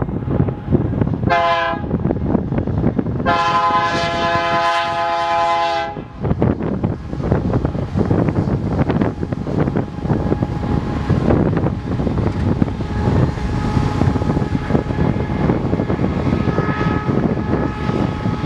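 Locomotive air horn sounding a chord of several tones, a short blast then a long one of about three seconds, over the steady rumble of a passing train.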